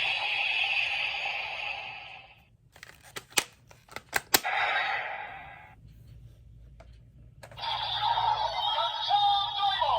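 Electronic sound effects played from a toy's speaker, then a run of sharp plastic clicks in the middle. Another burst of electronic sound follows, with gliding tones near the end.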